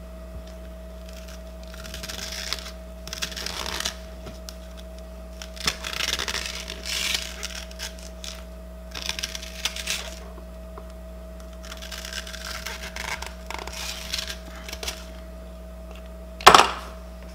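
Spaghetti squash seeds and stringy pulp scraped out of the halved rind with a ring scoop, in several rasping strokes with pauses between. A single sharp knock near the end.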